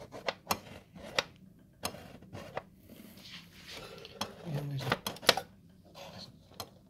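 Irregular metallic clicks and knocks from an aluminium strip and the metal chassis of a Korg Trinity synthesizer being pushed and tugged by hand to work the strip loose. The knocks come thicker and sharper about five seconds in.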